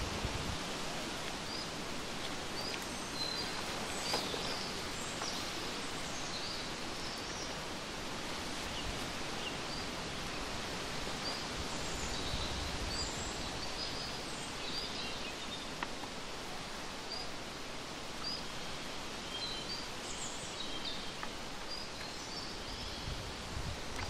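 Steady rustling outdoor background of leaves and foliage, with short high bird chirps scattered throughout.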